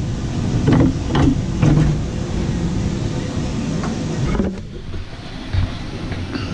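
Top cowling of a Mercury FourStroke outboard being unlatched and lifted off: a few knocks and clunks of the hard cover in the first two seconds and one sharp knock past the middle, over steady background noise.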